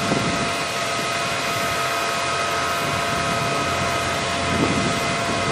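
Crane truck's engine and hydraulic system running steadily, a whine of several fixed tones, while the National telescopic crane's winch lowers the hook block. Gusts of wind hit the microphone at the start and again about four and a half seconds in.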